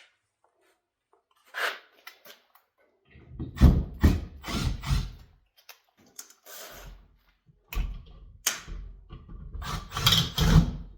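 Irregular scraping and thunking as a wired light switch and its wires are handled and pushed into an electrical box, starting about three seconds in and coming in clusters.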